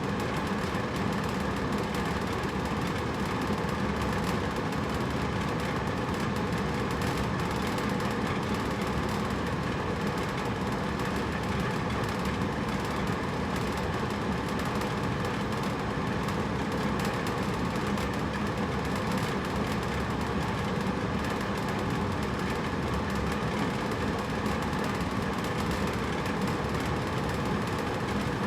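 Hotel room air conditioner running steadily: an even rush of air over a low hum, with no change.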